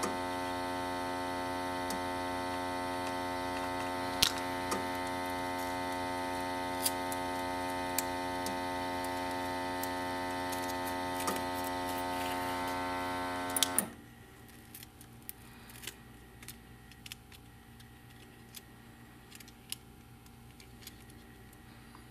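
Steady electrical mains hum with many overtones, which cuts off suddenly about fourteen seconds in. Quiet room tone with small scattered clicks follows.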